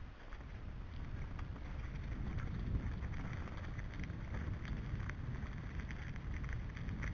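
Wind rumbling on the microphone of a camera on a moving mountain bike, with scattered ticks and rattles from the tyres rolling over gravel and the bike jolting on the rough track.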